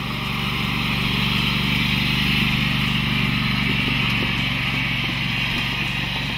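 Engine of a John Deere riding lawn tractor running steadily as it drives past towing a cart. It grows louder to a peak about two seconds in, then slowly fades.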